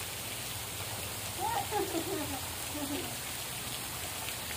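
Steady hiss of falling or running water, with a few short voices calling about one and a half to three seconds in.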